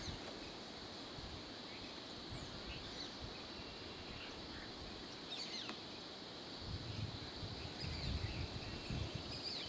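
Roadside bush ambience: scattered short bird chirps over a steady high insect drone, with a low rumble that grows louder about seven seconds in.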